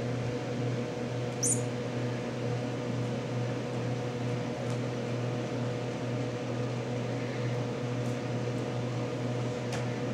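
Steady low machine hum, even throughout, with a brief high squeak about a second and a half in.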